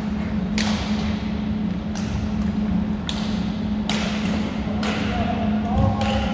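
Badminton shuttlecocks struck by rackets: about seven sharp, irregularly spaced smacks that echo in a gymnasium, over a steady low hum.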